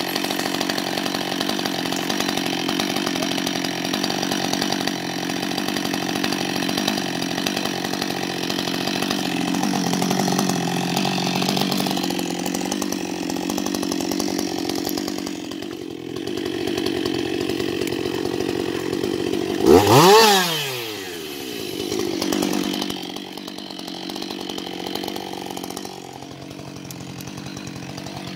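Husqvarna 560 XP two-stroke chainsaw running steadily at idle, with one brief sharp rev about two-thirds of the way through that rises quickly in pitch and drops back.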